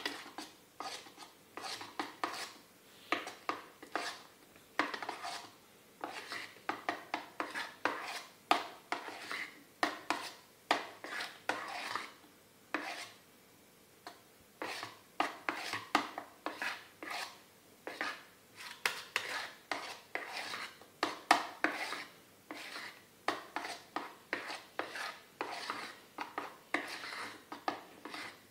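Metal spoon stirring cake batter in a metal bowl, clinking and scraping against the sides in a quick, uneven rhythm, with a short pause about halfway through. Chocolate paste is being mixed into the batter until evenly blended.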